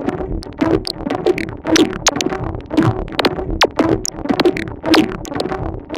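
Eurorack modular synthesizer patch played through a Make Noise QMMG vactrol multimode gate in filter mode, its feedback raised for voltage-controlled resonance. It plays a repeating electronic pattern of short, plucky notes, with the strongest hits about once a second.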